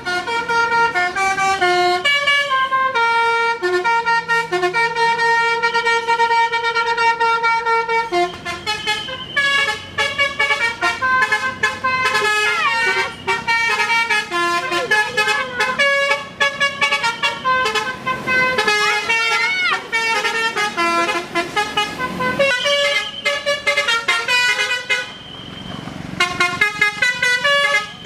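Basuri-type bus telolet horn playing a melody: a multi-trumpet air horn sounding clear pitched notes in steps, with long held notes for the first several seconds and then quicker runs of notes.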